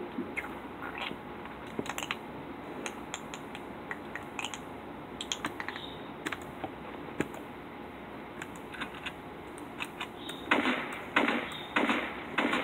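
Quick, irregular clicking and tapping of game controls during play, with a few short bursts of noise near the end.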